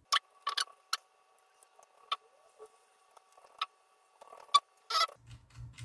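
Scattered sharp clicks and taps as hands handle and press an Asus Eee PC netbook's motherboard into its plastic case, a quick cluster at the start and single clicks spread through the rest.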